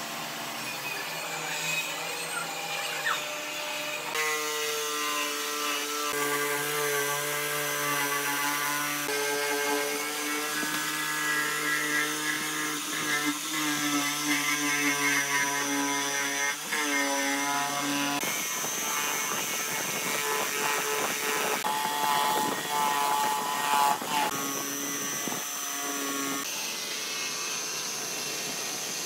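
Makita corded jigsaw cutting a curve through a wooden board panel. The motor whine shifts in pitch as the load changes, with the blade rasping through the wood, most densely in the second half.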